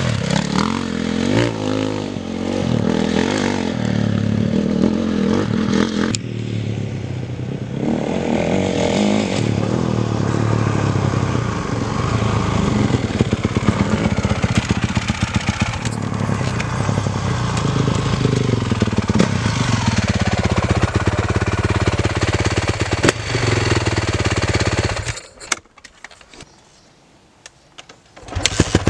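Honda CRF450 dirt bike's single-cylinder four-stroke engine running and being revved, its pitch rising and falling with the throttle. The sound drops away almost to nothing for about three seconds near the end, then comes back.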